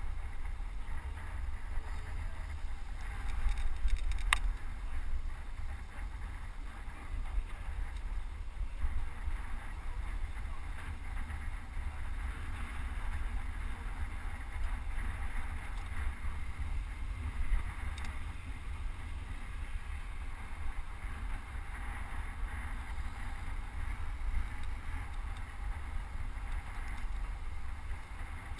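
Wind rumbling steadily on a helmet-mounted GoPro's microphone as a road bike rides along at speed, with a single sharp click about four seconds in.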